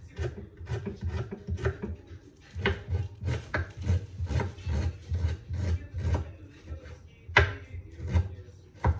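Kitchen knife chopping garlic cloves on a wooden cutting board: a quick, irregular run of blade strikes on the wood, about two to three a second, with two sharper knocks near the end.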